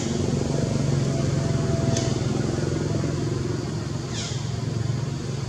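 Steady low engine hum of a motor vehicle running in the background. About four seconds in comes one short, high chirp that falls in pitch, and there is a faint click about two seconds in.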